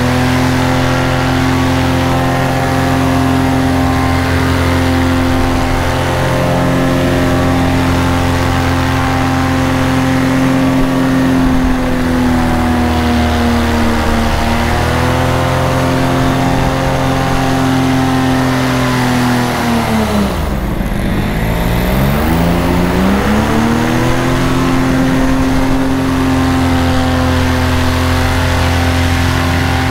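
Paramotor engine and propeller running steadily at cruise throttle, heard close up. About twenty seconds in, the pitch drops steeply as the throttle is backed off, then climbs back to cruise over a couple of seconds as power is fed in again.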